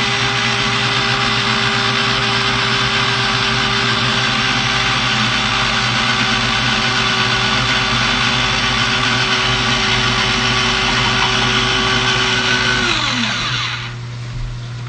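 Small blender motor running steadily as melted butter is slowly poured in to emulsify a butter sauce. About thirteen seconds in the motor is switched off, and its pitch falls as it winds down.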